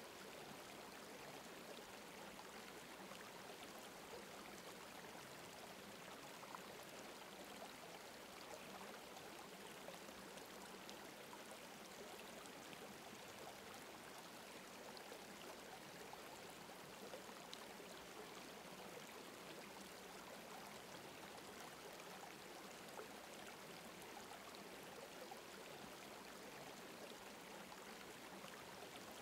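Faint, steady sound of running water, like a stream, with no other events.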